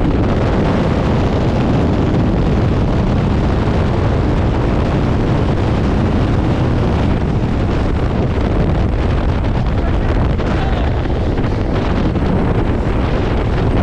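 Steady loud rush of wind and engine drone inside a small jump plane's cabin with the door open at altitude, the wind buffeting the microphone.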